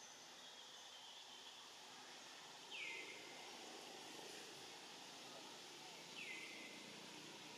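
Faint outdoor forest background with a steady hiss, and a bird calling twice, about three and a half seconds apart: each call a short whistle that slides down and then holds briefly.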